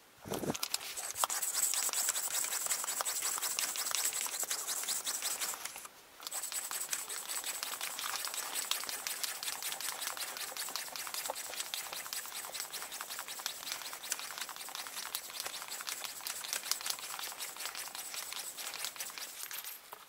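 Red hand-held ball pump inflating a rugby ball through an inflation needle: a steady hiss of pumped air with a short pause about six seconds in.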